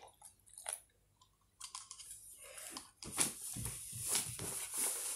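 Instant snow powder being wetted and worked by hand in a plastic tub: a few faint clicks, then from about three seconds in a dense, crackly, crunchy rustling.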